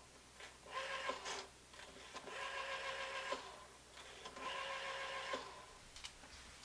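Telephone tones: four electronic beeps, each about a second long and starting and ending with a click, from the corded phone as a call is placed.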